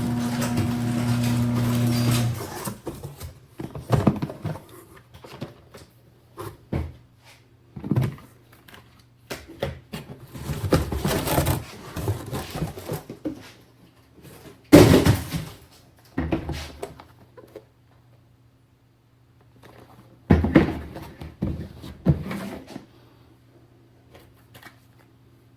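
Hands handling PC parts and their packaging: a series of rustles, clicks and knocks, the loudest about 15 seconds in. A steady low hum stops about two seconds in.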